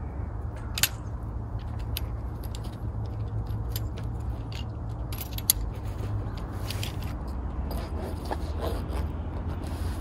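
Wind rumbling on the microphone, with scattered clicks, scrapes and rustles of a pup tent's canvas and its pole being handled as the front awning is taken down and the tent closed. Two sharper clicks stand out, about a second in and about halfway through.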